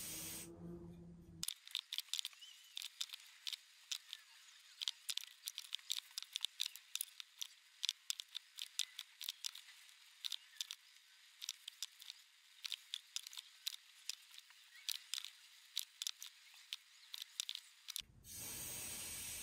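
An aerosol spray can hisses and stops within the first second. That is followed by a long run of irregular, sharp clicks and ticks from a brush or stick worked in a small plastic cup of paint. The spray hiss starts again near the end.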